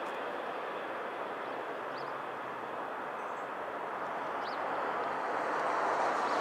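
Amtrak passenger train receding, its rumble a steady noisy wash that fades off down the line. Two faint short high chirps come about two and four and a half seconds in.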